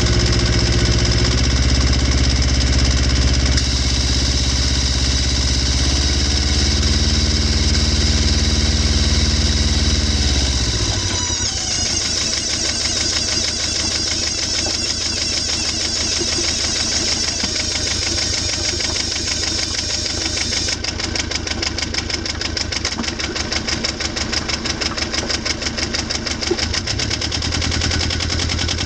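Beta 14 three-cylinder marine diesel driving a PRM 60 gearbox through an elastic coupling, running steadily. About ten seconds in, the engine note drops in pitch, and a fast, even rattle follows. This is the strange noise that the owner traces to the new PRM 60 gearbox rather than to the engine.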